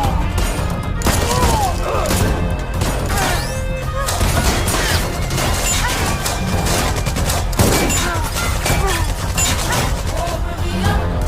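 Film gunfight soundtrack: rapid, repeated gunshots and impacts over a dramatic background score with a heavy bass.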